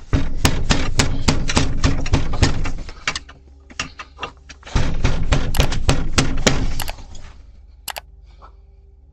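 A rapid, irregular series of sharp knocks or clatters, several a second, over a low rumble. They come in two runs, the first about three seconds long and the second about two, with a few single clicks in between and after.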